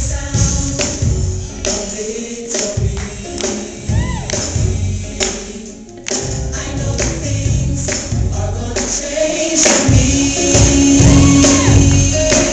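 Gospel music: a choir singing over a steady beat with bright percussion, dipping briefly about halfway through before coming back fuller.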